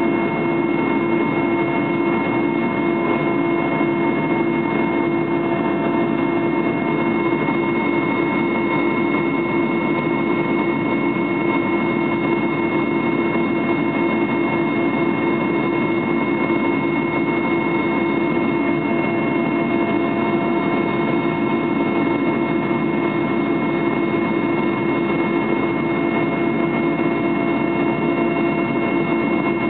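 Aircraft engines in flight heard inside the passenger cabin: a steady drone with a strong low hum and several fixed higher tones over an even rushing noise, unchanging throughout.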